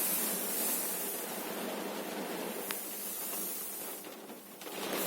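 Steady rain on a car, heard from inside the cabin as an even hiss of falling water. A single sharp click sounds a little past halfway, and the noise briefly dips near the end before returning.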